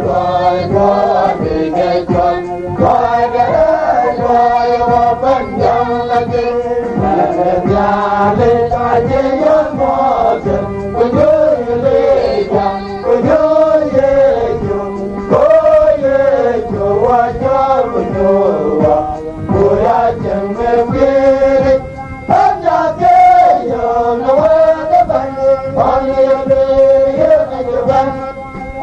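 A Dinka gospel song: voices singing a melody that rises and falls, with musical accompaniment throughout.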